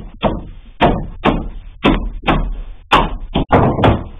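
A run of about nine sharp knocks, roughly two a second, from a chipboard sliding-wardrobe door panel with an edge profile being knocked and handled by hand.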